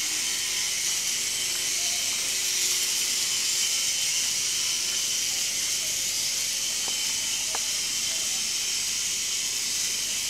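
Steady, high-pitched hiss, with two faint clicks about seven seconds in.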